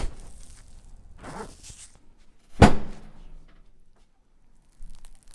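A single sharp crack with a thud about two and a half seconds in: a joint popping under a chiropractor's manual adjustment thrust.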